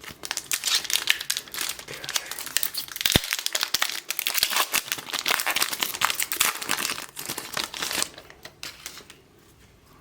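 A trading card pack wrapper being torn open and crinkled, dense crackling that stops about eight seconds in.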